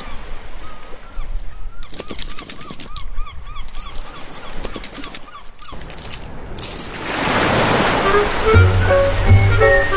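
Cartoon sound effects for a scuttling crab: a run of rapid squeaky chirps with light clicks. About seven seconds in a splashing wave sound swells up, and a cheerful intro jingle with a bass line begins near the end.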